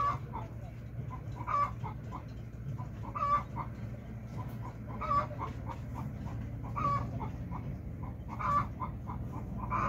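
Chicken clucking: a louder call about every second and a half to two seconds, with softer, shorter clucks in between, over a steady low hum.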